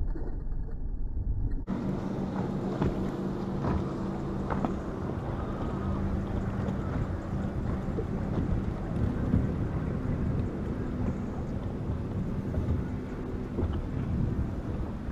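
Wind buffeting the microphone on an open boat deck, over a low steady motor hum.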